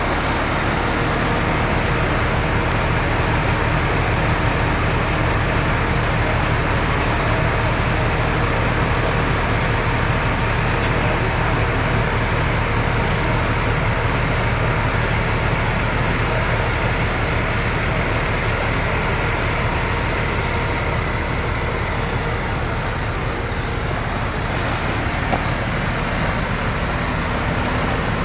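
A motor vehicle's engine running steadily at a constant speed, with an even low hum.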